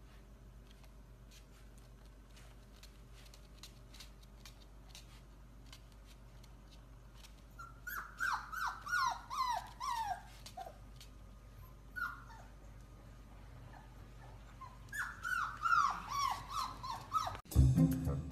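A puppy whimpering in runs of short, high yips that each slide down in pitch: about eight in quick succession midway, a couple on their own, then another run just before the end. Faint clicks come first, and music starts right at the end.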